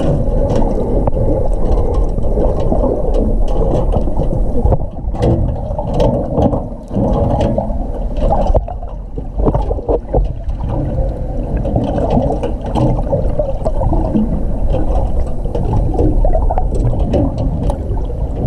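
Muffled churning water and bubbles heard with the camera underwater in its housing, with scattered sharp clicks and knocks throughout.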